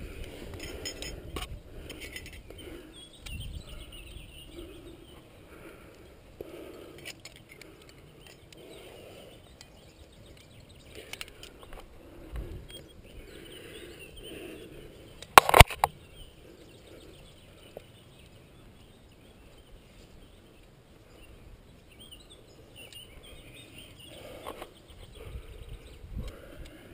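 Climbing sounds picked up by a helmet camera: hands and climbing shoes scuffing and scraping on limestone, with rustling of clothing and gear. About fifteen seconds in comes the loudest sound, a sharp clatter of two or three knocks close together.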